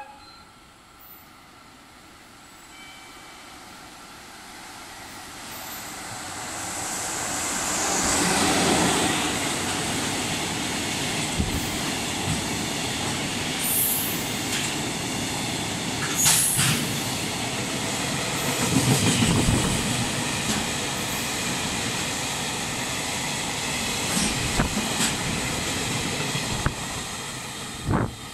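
Freight train led by an EF66 electric locomotive running through the station at speed. It grows louder as it approaches, is loudest as the locomotive passes, then a long string of tank wagons rolls by with a steady wheel rumble and repeated knocks over the rail joints.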